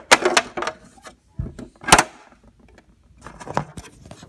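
Handling noise from plastic toy figures and props being moved about: scattered clicks and knocks, with two sharper knocks about one and a half and two seconds in.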